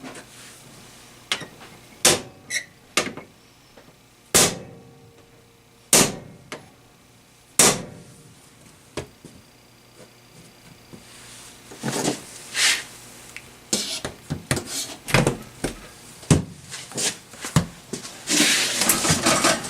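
Sharp metal knocks on an old refrigerator's door hardware, like hammer strikes, spaced a second or two apart, then quicker knocking and clattering over the last several seconds.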